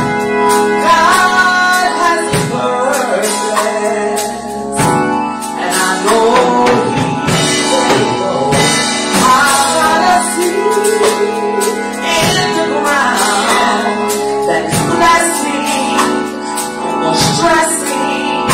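Gospel praise-and-worship music: singers' voices over a held keyboard chord, with drum and percussion hits keeping the beat.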